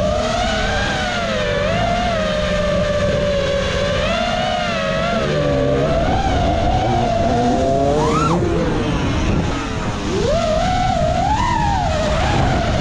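A five-inch FPV freestyle quadcopter's brushless motors (Ethix Stout 2306, 1750 kV) whining, the pitch rising and falling constantly with the throttle. There is a sharp throttle punch just after 8 seconds, then a dip and a steep climb around 10 seconds, over rough propwash and wind noise.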